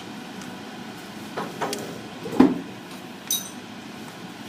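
A few sharp knocks and taps from a soldering iron and a leaded stained-glass piece being handled on the work surface during solder clean-up. The loudest knock comes about two and a half seconds in, and a light glassy clink with a brief ringing comes a little after three seconds.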